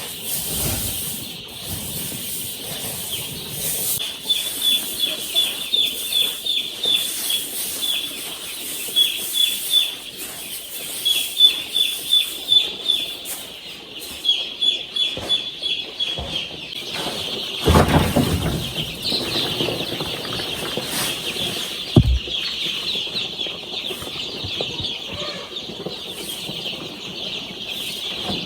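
Young chicks peeping, many short high cheeps in quick runs. A dull thump comes a little past halfway and a sharp knock a few seconds after it.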